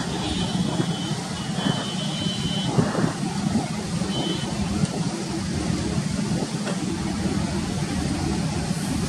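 Distant, steady low rumble of an Airbus A330-343's Rolls-Royce Trent 700 jet engines as the airliner moves along the ground. Short high-pitched chirps sound over it in the first few seconds.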